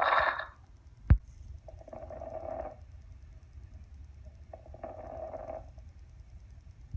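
Breathing: a louder breath at the very start, then breaths of about a second each, roughly every three seconds, over a steady low rumble. A sharp knock about a second in.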